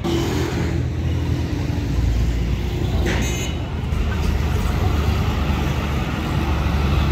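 Road traffic dominated by the low engine of a heavy truck driving past. The engine grows louder about two seconds in and stays strong. A brief high sound cuts through about three seconds in.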